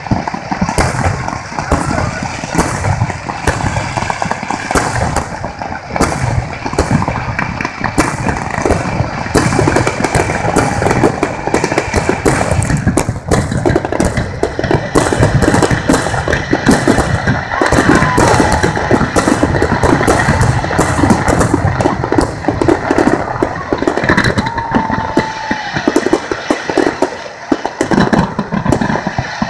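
Large fireworks display: a dense, continuous barrage of bangs and crackling from ground fountains and bursting aerial shells, many reports a second with no let-up.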